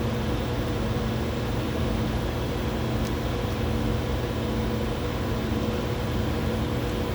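Steady mechanical hum and hiss of running laboratory equipment, with a few constant tones over an even noise bed.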